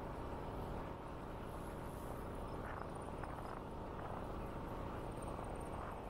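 Steady wind and rolling noise of a bicycle ride along a rural bike trail, with faint, high insect chirping a couple of times.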